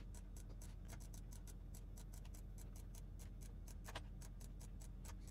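Faint, rapid computer mouse clicks, about six a second, with a few louder clicks about one, four and five seconds in, over a low steady hum.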